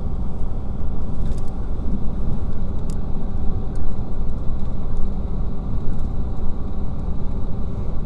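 Renfe Alvia free-gauge train running at about 140 km/h, a steady loud rumble of the running gear on the rails heard from inside the carriage, with a few faint clicks.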